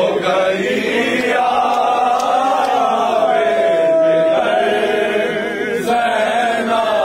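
A man's voice chanting an Urdu soz, a Shia mourning elegy, in long drawn-out notes that waver slowly in pitch.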